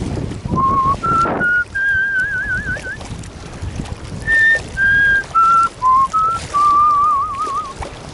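A person whistling a tune: a string of short held notes stepping up and down in pitch, a few of them with a wavering vibrato.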